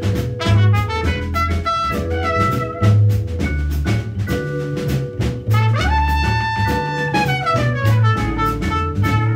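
Small jazz band playing, with a trumpet leading over upright double bass, vibraphone and a drum kit's cymbals. The trumpet plays a melodic line, then holds a long note from about six seconds in that bends down in pitch near the end.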